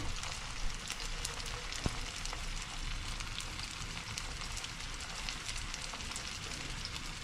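Food frying in a pan: a steady sizzle with scattered small crackles and one sharper pop about two seconds in.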